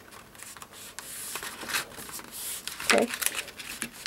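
Manila folder card stock being slid and shifted against itself and the tabletop as its edges are lined up, giving a run of papery rustles and scrapes.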